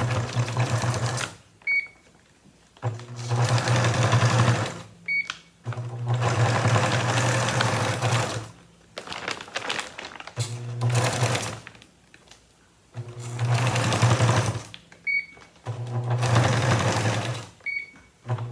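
Electric sewing machine stitching in about seven short runs of one to two and a half seconds, stopping and starting, with a motor hum under the needle's rattle: back stitching a handle seam on a feed-sack bag. Short high beeps sound in several of the pauses.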